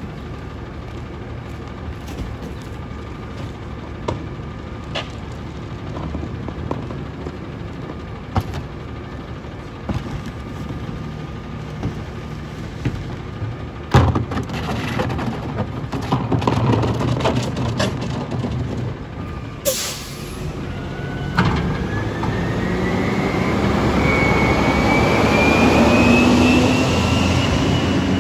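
Front-loader garbage truck's diesel engine idling while trash carts and boxes are knocked into its carry-can container, with one loud bang about halfway. About two-thirds in an air hiss sounds and the engine comes up with a steadily rising whine, getting louder until it cuts off near the end.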